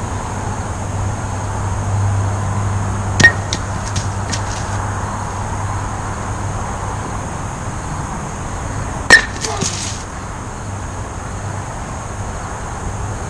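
Two sharp wooden clacks about six seconds apart, each followed by a few lighter knocks: thrown kubb batons striking the wooden kubb blocks, which tumble onto the grass. A steady low hum runs underneath.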